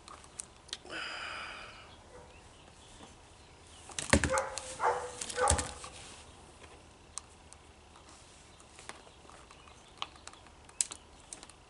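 Handling noises from the plastic trimmer head and its nylon line being worked by hand: a few clicks, a short scrape about a second in, then a burst of clattering knocks between about four and six seconds in, and scattered light clicks after.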